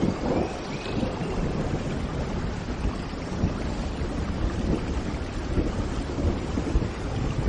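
Steady heavy rain with a low, rolling rumble of thunder underneath. A faint bird chirp comes through about a second in.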